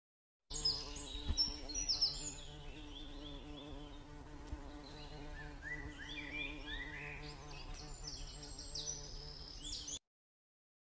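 Many small birds chirping in quick, high, repeated notes and short rising calls over a steady low hum. The sound starts and cuts off abruptly.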